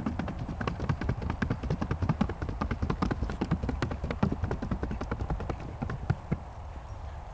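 Paso Fino horse's hooves striking firm ground in a rapid, even four-beat gait under a rider, fading out about six seconds in.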